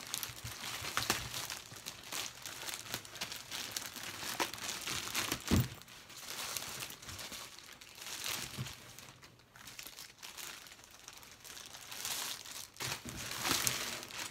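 Clear plastic poly bag crinkling and rustling in irregular bursts with sharp crackles as it is handled and pulled off a backpack, loudest near the end.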